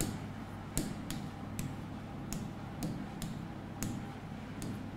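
Marker pen writing on a whiteboard: a series of short, light taps and scrapes of the tip against the board, roughly one every half second to second, over a faint steady low hum.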